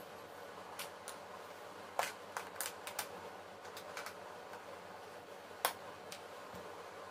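Irregular sharp clicks and taps of handling, about a dozen, loudest about two seconds in and again near six seconds, with a quick run of them between two and three seconds, over a steady low hiss.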